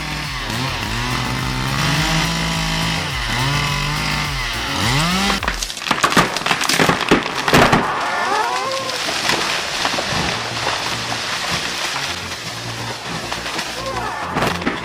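Two-stroke chainsaw cutting into a wide tree trunk, its engine pitch dipping and recovering over and over as the chain bogs in the cut. About five and a half seconds in, the sound changes abruptly to a harsher, noisier stretch with sharp cracks.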